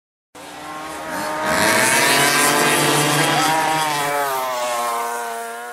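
A racing engine revving: it cuts in suddenly, climbs in pitch about a second and a half in, holds at high revs, then eases off and begins to fade near the end.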